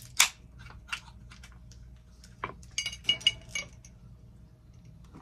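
A few sharp taps and clicks, then a quick run of glassy clinks with a short ring about three seconds in, as an aluminium soda can and a glass mug full of ice are handled.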